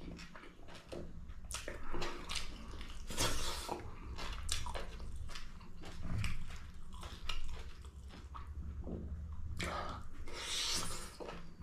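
Close-up chewing and biting of meat, an irregular run of wet clicks and crunches from the mouth.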